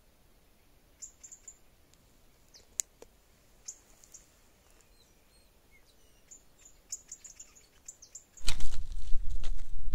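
Small birds chirping faintly and sparsely, high-pitched, with one sharp click about three seconds in. Near the end a loud rustling, rumbling noise sets in.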